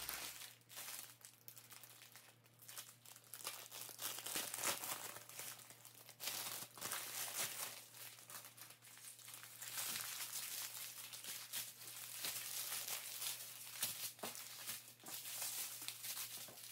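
Crinkling of clear plastic wrap and strips of small plastic bags of diamond-painting drills, handled as they are unwrapped and spread out by hand: irregular crackling that grows busier about six seconds in.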